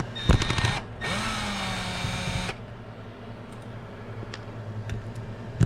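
Small electric drill-driver motor spinning for about a second and a half, backing out a screw, after a few rattling clicks of handling; a sharp click near the end.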